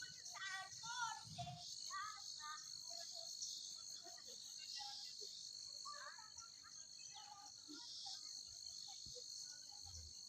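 Steady high-pitched chorus of crickets and other insects, with short chirping calls scattered over it.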